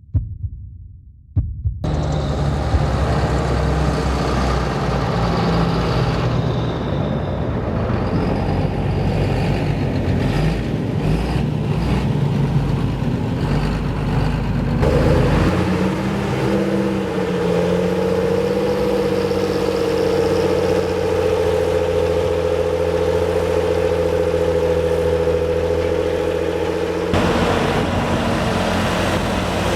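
John Deere 7720 tractor's diesel engine working hard while pushing silage up a silage pile. A few low thumps come first, then the engine sound starts abruptly. About halfway a steady whine rises over the engine note, and the sound changes again near the end.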